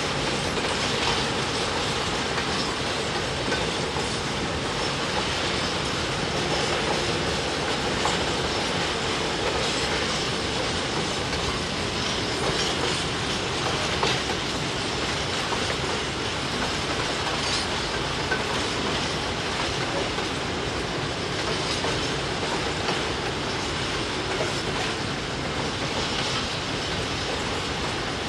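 Freight train of open-top wagons rolling past at steady speed: a continuous rumble of steel wheels on the rails, with occasional clicks as wheels cross the rail joints.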